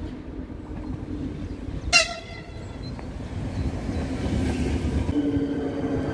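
A ČD class 471 CityElefant double-deck electric train gives one short horn toot about two seconds in. It then runs past close by: a rising rumble of wheels on rail with a steady whine from its electric traction equipment.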